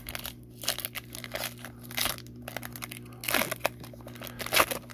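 Foil wrapper of a Topps Chrome baseball card pack being torn open and crinkled by hand, in irregular crackling bursts, the loudest about four and a half seconds in.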